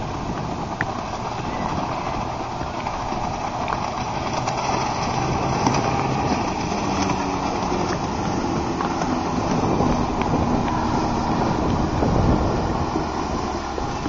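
Small outboard motor running at speed on a passing boat, its hum plainest about halfway through, under steady wind noise on the microphone.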